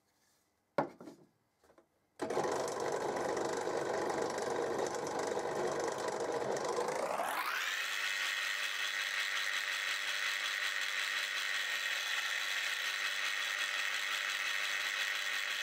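Benchtop drill press running while drilling a 2.5 mm pilot hole in mild steel flat bar. A sharp click about a second in, then the motor runs with a steady whine; about five seconds later its pitch rises over a moment and holds higher.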